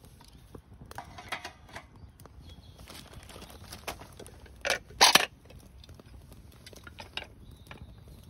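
Scattered small clicks and knocks of objects being handled, with two louder clatters about five seconds in.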